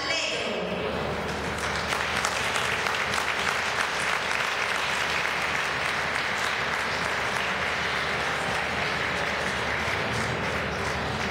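Audience applauding steadily; the performance music dies away in the first moment.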